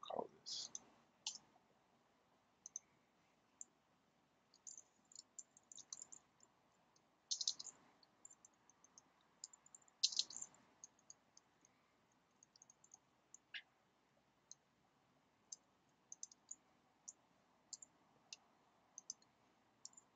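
Faint, irregular clicking of typing on a computer keyboard, with a few louder bunches of keystrokes near the start and around the middle.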